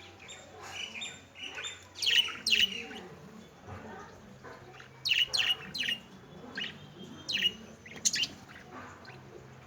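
Pet lovebirds chirping: short, sharp high-pitched calls in quick clusters, loudest about two seconds in and again around the middle and near the end.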